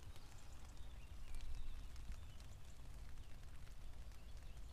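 Light rain falling on a tent, heard from inside: faint, irregular ticks of drops on the fabric over a low, steady rumble.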